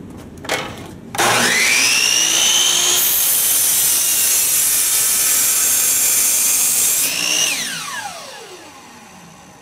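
DeWalt compound miter saw switched on after a click, its motor whining up to full speed, then the blade cutting through a 4x4 wood post for about four seconds with a loud rasp. The trigger is released and the motor's whine falls steadily as the blade coasts down toward a stop.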